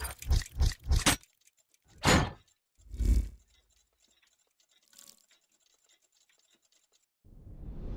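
A quick run of short, heavy thumps, then two single thuds about a second apart. Music starts to swell in near the end.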